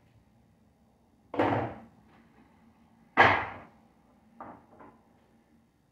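Two loud thuds about two seconds apart on a cutting board as a rack of pork ribs is cut and handled with a knife, followed by two faint clicks.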